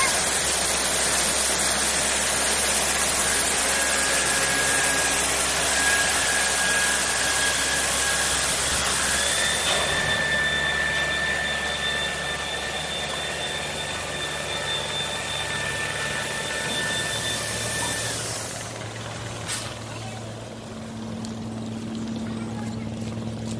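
A ship rolling down the slipway on inflated rubber launching airbags makes a loud, steady rushing rumble with a high whine running through it. The noise drops off sharply about eighteen seconds in.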